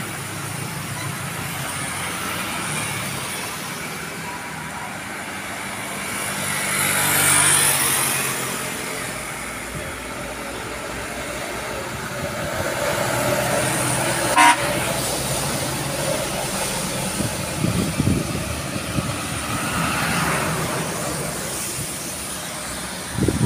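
Road traffic passing close on a wet road: engines of motorcycles and trucks, with tyre hiss swelling and fading as each goes by. A short horn toot sounds about halfway through.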